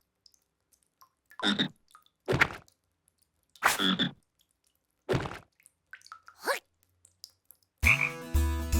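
Croaking cartoon vocal sounds: five separate short croaks, each a fraction of a second, with pauses between. Near the end a burst of music with a deep low note sets in.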